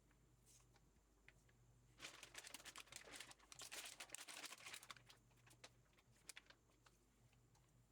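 Faint crinkling and crackling, a dense patter of small sharp sounds from about two to five seconds in, with scattered ticks before and after over a low steady hum.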